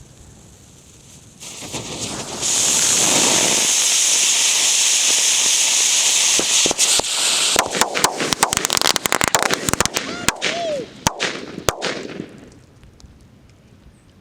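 Fireworks going off: a loud spraying hiss builds about two seconds in and holds for some five seconds, then a rapid string of sharp firecracker cracks with a brief whistle, dying away about twelve seconds in.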